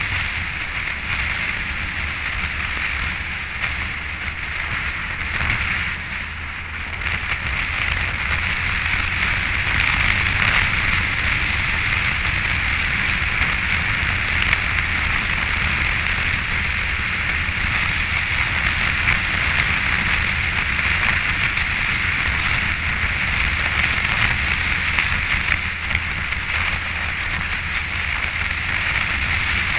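Wind rushing over the camera microphone on a moving Yamaha FJR1300 motorcycle, over a low drone from the bike's inline-four engine and tyres. The rush grows louder after about seven seconds.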